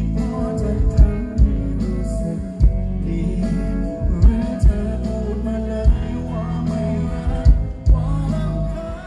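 A male singer performing live with a band, singing held notes over steady bass and drum hits from a concert sound system.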